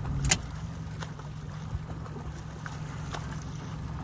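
Steady low hum of an escort boat's motor, with short water splashes and slaps, the loudest just after the start.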